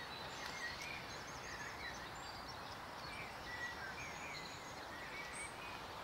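Faint, scattered chirps and short whistled calls of small songbirds over a steady background hiss.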